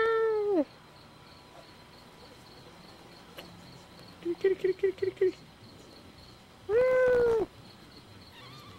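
A cat yowling: a long drawn-out call at the start and another near the end, with a quick run of six short cries in between.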